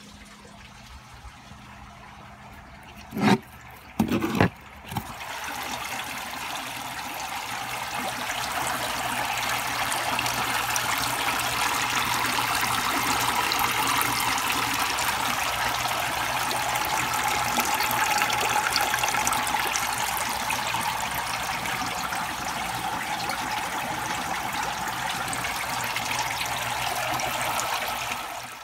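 A few sharp knocks about three and four seconds in. Then water in an aquaponics tank starts to pour and splash, building to a loud, steady rush that stops abruptly at the end.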